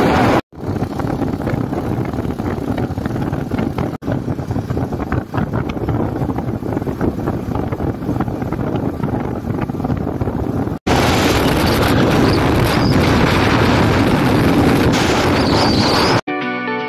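Wind buffeting the microphone of a moving motorcycle, with engine and road noise beneath it, broken by two brief dropouts. Acoustic guitar music starts near the end.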